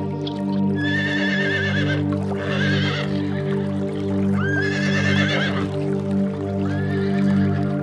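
Four high, wavering animal calls, each a second or so long, over steady background music.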